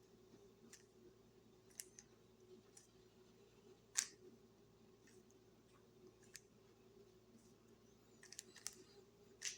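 Faint plastic clicking of a Rubik's cube's layers being turned through an OLL algorithm: scattered soft clicks, a sharper one about four seconds in and a quick cluster near the end.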